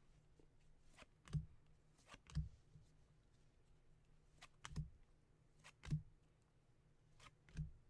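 Baseball trading cards being flipped through by hand: soft taps and clicks, often in pairs, as cards are moved from the front of the pack to the back.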